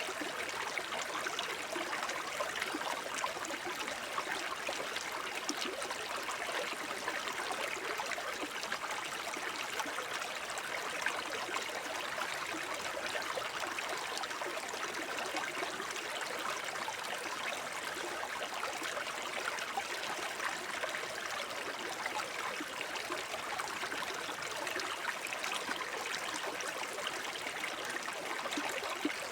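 Shallow forest brook babbling and trickling over stones: a steady, even rush of running water with small splashy flickers.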